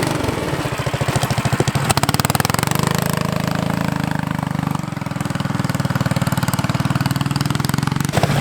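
A 420cc single-cylinder engine with a header exhaust, on a homemade off-road go-kart, running hard with a fast, steady string of firing pulses as the kart is driven.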